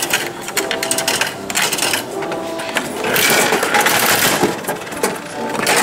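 Coins clicking as they are fed one by one into the coin slot of a 500-yen gacha capsule vending machine. About three seconds in, the machine's handle is turned, giving a louder, continuous rattle for about a second and a half.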